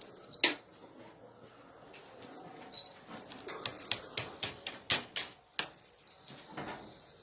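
Pigeons in a loft: scattered sharp taps and clicks, busiest from about three to six seconds in, with a few short high calls.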